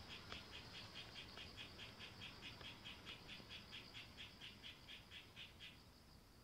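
A frog calling faintly in a regular run of short pulses, about four to five a second, over a steady high thin hum; the pulses stop near the end.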